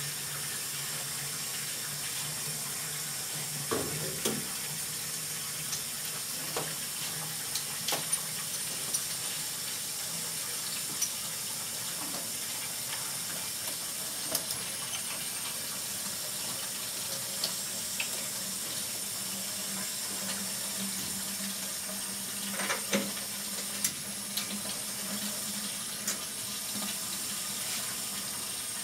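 Steady rush of water pumped through hoses by a flush cart, flushing a geothermal heat pump's ground loop, with a low hum underneath. Scattered light knocks come from hoses and fittings being handled, a cluster of them about three quarters of the way through.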